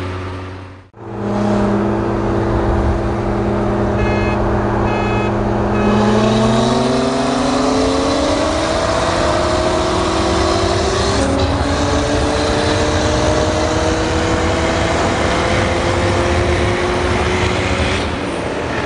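Car engine accelerating hard at highway speed, heard from inside a following car: the pitch climbs for several seconds, drops at a gear change about eleven seconds in, then climbs again, over steady road and wind noise.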